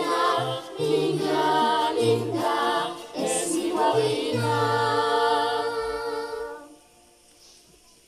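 A children's school choir singing the closing phrase of a song, ending on a long held final note that dies away about seven seconds in.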